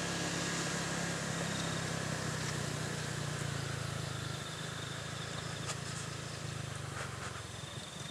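Motorcycle engine running steadily under way, with road and wind noise over it; the engine note eases off slightly in the second half.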